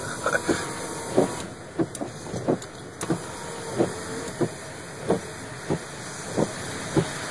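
A car's steady running noise with a regular thump about every two-thirds of a second.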